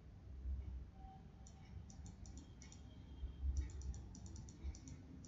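Computer keyboard and mouse clicking in quick runs of three to five clicks, from about a second and a half in, over a few dull low bumps.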